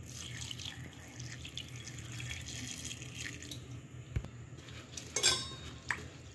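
Tap water running steadily into a steel bowl of drumstick pieces being rinsed, then water splashing as red lentils are washed by hand in the bowl. A sharp ringing knock on the steel bowl comes a little after five seconds in.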